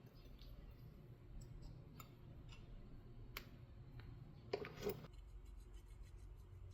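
Faint, scattered clicks of small parts being handled on a workbench, with a louder pair of clicks about four and a half seconds in, over a low steady hum.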